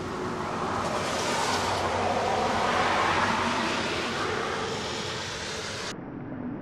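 A car passing on a wet road: its tyre hiss swells over a couple of seconds and fades away. Just before the end the sound drops suddenly to a duller, quieter hiss.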